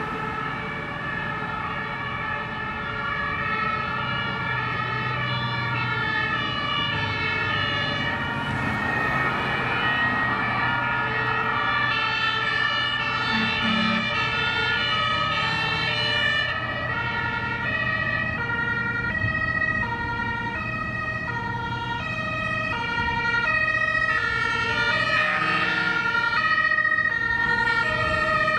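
Several German fire engines' two-tone sirens (Martinshorn) sounding together, each alternating between a high and a low tone and overlapping out of step with the others. Under them runs the low rumble of the trucks' diesel engines as the convoy drives past.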